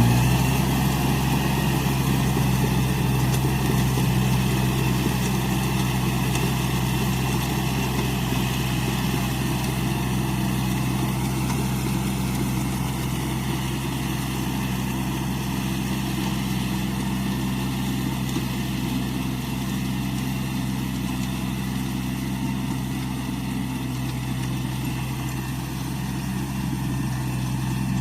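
Iseki NT540 tractor's diesel engine running at a steady, even speed.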